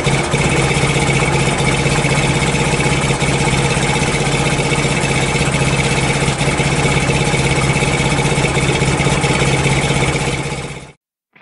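Yamaha XS650 Special's air-cooled parallel-twin engine idling steadily through its exhaust, cutting off suddenly near the end.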